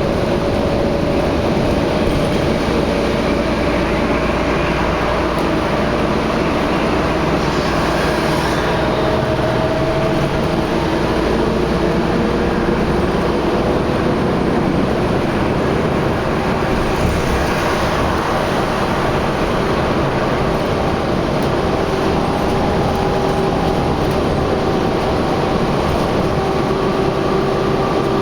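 Steady road noise of moving traffic, with a hum that drifts slowly in pitch and a brief hiss twice.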